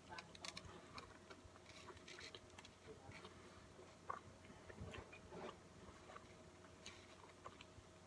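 Faint chewing of a mouthful of burger: scattered soft wet clicks and smacks of the mouth working, over a faint steady hum.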